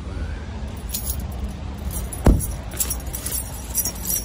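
A car door shutting with one loud thump about halfway through, with a light jingling of keys before and after it, over a steady low rumble.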